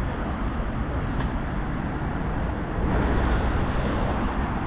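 Road traffic on a city street: a steady rumble of passing cars, growing louder about three seconds in as a vehicle goes by.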